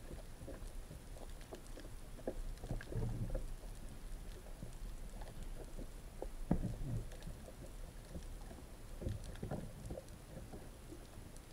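Muffled underwater sound picked up through an action camera's waterproof housing: low rumbling water movement with scattered soft knocks and clicks, and a louder thump about six and a half seconds in.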